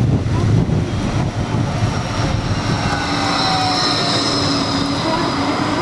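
Light-rail tram (Bombardier Flexity 2) passing close by, with a steady high whine setting in about halfway through as it draws level. Wind buffets the microphone at the start.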